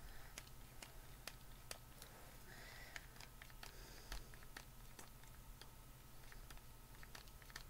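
Faint, irregular clicking of a plastic pump-top gel tube being pressed over and over, about two clicks a second. The pump is stuck: no product comes out.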